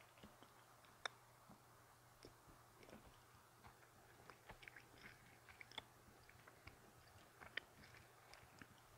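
Faint, irregular wet clicks of a person chewing a sticky, hard-to-chew Japanese candy with the mouth closed.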